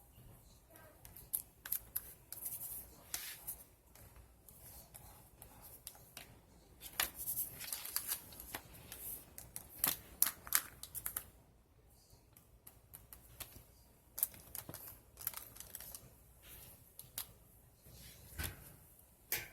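Paper being handled and cut for a collage: irregular scissor snips mixed with paper rustling and crinkling in short bursts, busiest from about seven to eleven seconds in.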